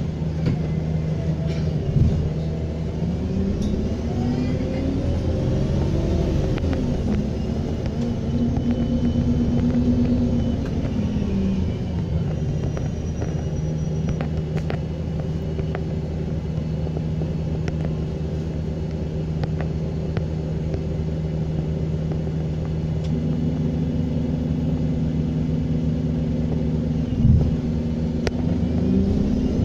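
Diesel bus engine under way, its pitch rising and falling as it pulls through the gears, with a faint turbo whistle rising above it. Two short knocks come about two seconds in and near the end.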